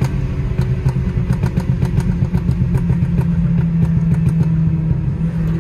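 BMW saloon's engine and exhaust drone heard from inside the cabin while cruising, holding a steady low pitch that firms up about two seconds in. A scatter of short sharp clicks runs through the first few seconds.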